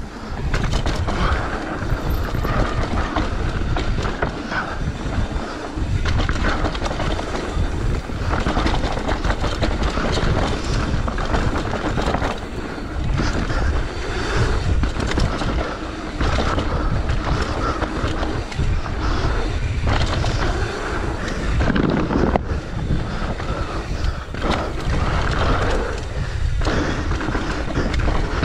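Mountain bike running fast down a dry dirt trail: tyre noise on the hardpack and the bike rattling and knocking over bumps, with wind on the microphone.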